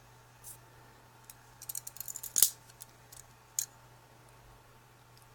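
Bradley Kimura IV balisong (butterfly knife) being flipped and handled: a run of sharp metallic clicks and clacks as the handles swing around and strike, with a quick flurry near the middle, the loudest clack about two and a half seconds in, and a last click about a second later.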